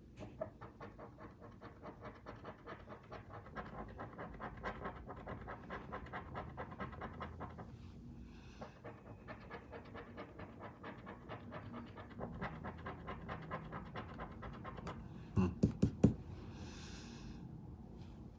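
Scratch-off lottery ticket being scratched in quick, rhythmic strokes, with a short pause about eight seconds in. A few sharp, louder knocks come about three seconds before the end.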